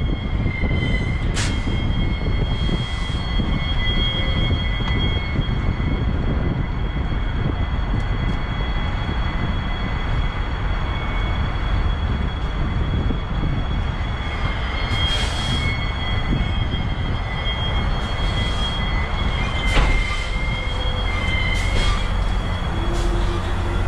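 Semi-truck manoeuvring slowly at close range: a steady low diesel engine rumble with a continuous high squeal from the trailer's wheels, broken by a few short sharp air hisses.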